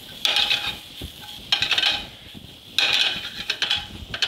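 A skillet of string beans sautéing in butter and shallots, tossed by shaking the pan three times. Each shake is a burst of about a second of the beans scraping and sizzling across the metal pan.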